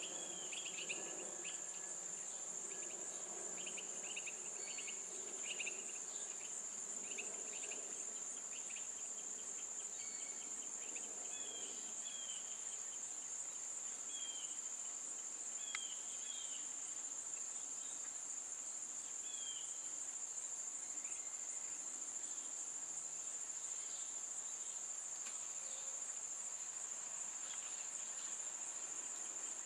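A chorus of summer insects sounds as one steady, high-pitched trill. Short bird chirps come and go over it during the first two-thirds.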